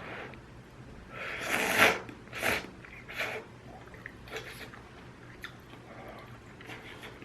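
A person eating ramyun: a few short, noisy slurps, the loudest about a second and a half in and three shorter ones after it, with soft chewing between.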